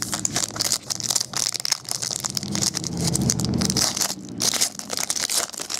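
Plastic wrapper of a trading card pack crinkling and tearing as hands work to pull it open, a dense run of crackles; the pack is stubborn and doesn't want to open.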